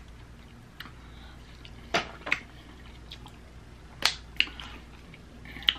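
Snow crab shell being cracked and snapped apart by hand, close to the microphone: a handful of short, sharp cracks, the loudest about two seconds and four seconds in.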